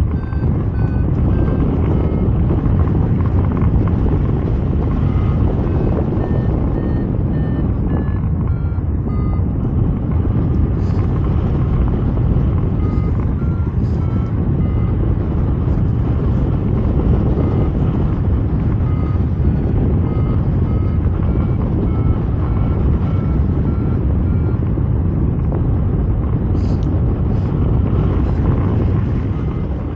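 Wind rushing over the microphone in flight, with a paragliding variometer beeping in short, evenly spaced tones whose pitch drifts up and down, the beeping of a climb.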